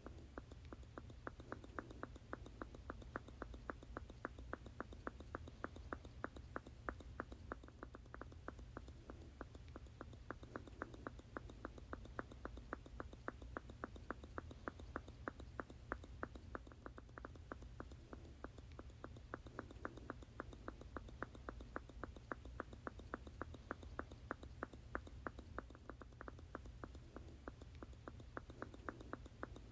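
Squeeze bottle squirting over and over in a quick, even rhythm of about three short squirts a second, over a low steady hum.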